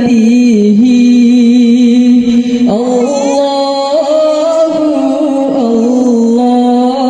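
A boy singing an Islamic gojol (Bengali devotional song) solo into a microphone, drawing out long held notes with small melodic turns and stepping up in pitch about two and a half seconds in.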